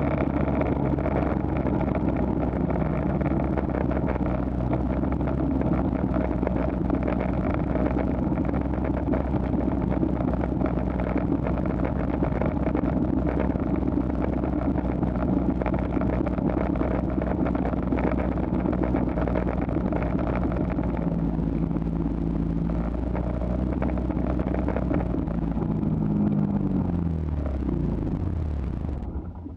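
Engine of a ride-on snow vehicle running steadily under way. Near the end its pitch falls as it slows, and it stops at the very end.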